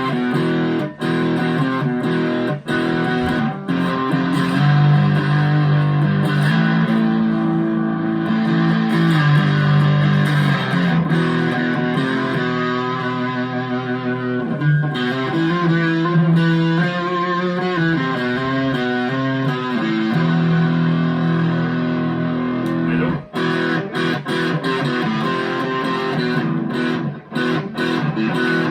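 Chapman ML3 Standard P90 electric guitar played on its neck pickup through a Vox AV15 amp, with the pedal switched off. It plays a run of chords and single-note lines with notes left to ring.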